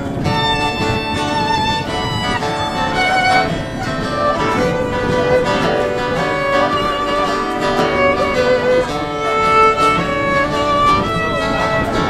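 Live acoustic string band playing an instrumental passage: a fiddle carries the melody over a strummed acoustic guitar.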